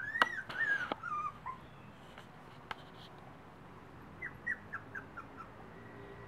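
Tibetan Terrier puppies, nearly four weeks old, whimpering: a few high, falling whines in the first second and a half, then a quick run of about seven short yelps about four seconds in. A few sharp clicks come early on, the loudest in the first second.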